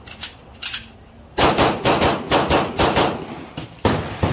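Rapid string of shots from a Sig Sauer P320 pistol, about four to five a second, starting about a second and a half in. There is a brief pause near the end before the shots resume.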